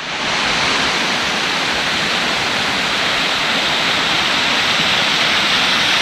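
A small waterfall, about 16 m high, making a steady rushing roar of falling water.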